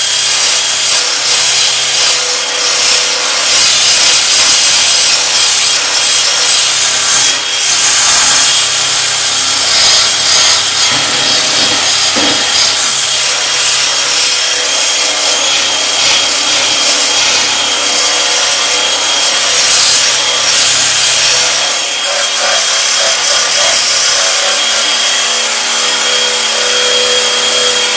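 Rotary wire brush on an electric drill scouring rust and old glass sealant off a steel tailgate: the drill motor whines steadily while the wires grind against the metal without a break, easing briefly about 7 and 22 seconds in.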